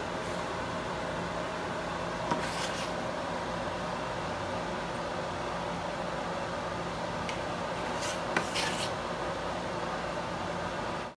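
Steady fan-like hum of kitchen room noise. A knife cutting cheese over a glass bowl gives short scrapes and clicks about two seconds in, and again around eight to nine seconds in.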